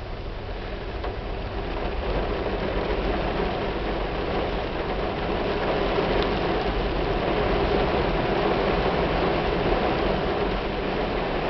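Heavy rain pouring on a car's roof and windshield, heard from inside the car as a steady hiss. It grows louder over the first couple of seconds, then holds.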